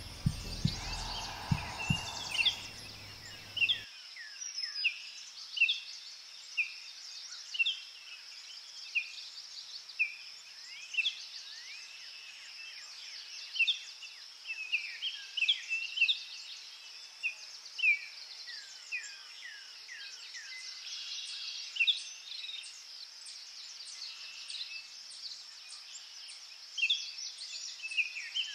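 Nature ambience: many short, downward-sliding bird chirps, several a second, over a steady high insect drone. A lower rumble underneath cuts off about four seconds in.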